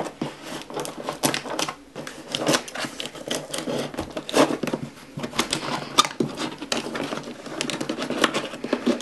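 Scissors snipping through packing tape along the seam of a cardboard box, a continuous run of irregular sharp clicks and crinkles, with the tape proving hard to cut.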